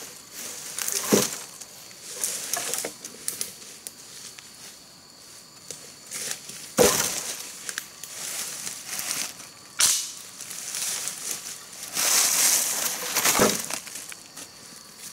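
Dry leaf litter, twigs and cut bamboo branches crunching and rustling under footsteps and handling, with four sharp cracks of wood spread through.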